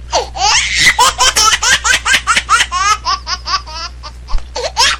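High-pitched laughter in rapid rhythmic bursts, about five a second, dropping away briefly before picking up again near the end.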